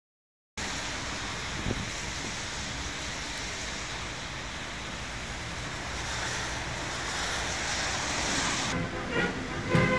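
Wind rushing steadily on the microphone, swelling near the end. About a second before the end, music starts up.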